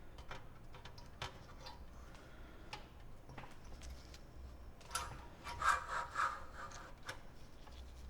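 Parts of a computer being handled and fitted during reassembly: scattered clicks and taps, with a louder burst of rattling and scraping about five to six seconds in.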